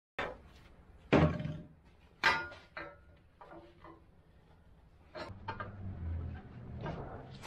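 Steel parts knocking and clunking together as a piece is positioned on a steel grapple frame, two sharp knocks loudest, then a run of lighter clicks from a one-handed bar clamp being squeezed tight to hold the piece for welding.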